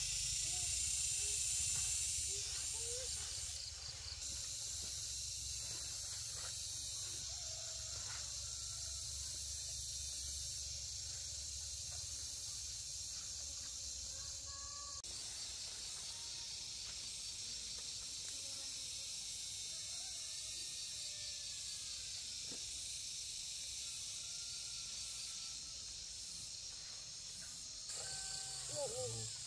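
Outdoor rural ambience: a steady high-pitched hiss with a low rumble beneath it and a few faint short calls, changing abruptly a few times.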